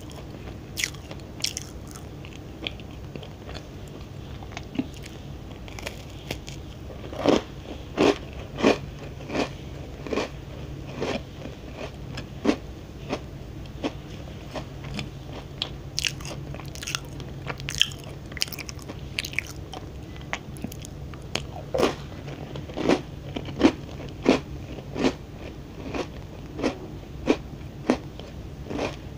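Close-up chewing of a crunchy oat crunch cookie: sharp, irregular crunches of biting and chewing, with spells of louder crunching.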